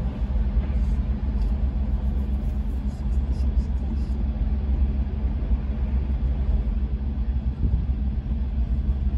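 Steady low engine rumble with an even hum, without change.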